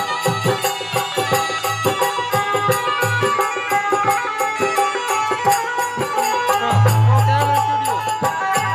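Instrumental interlude of a folk bhajan: an organ plays sustained melody notes over a fast, steady percussion beat, with a deep bass note held for about a second and a half near the end.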